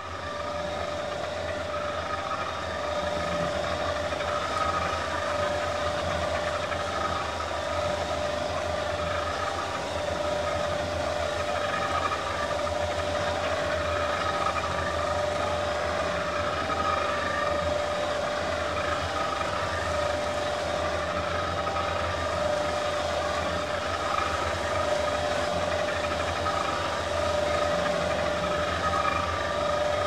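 Steady mechanical drone: a low hum with constant tones over an even hiss, running unbroken.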